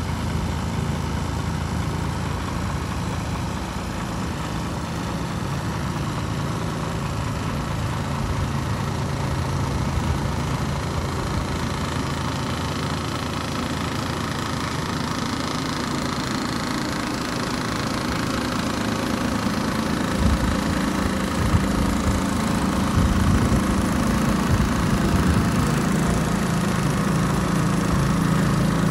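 Iveco Trakker 450 tipper truck's Cursor 13 straight-six diesel engine idling steadily, growing somewhat louder over the last several seconds.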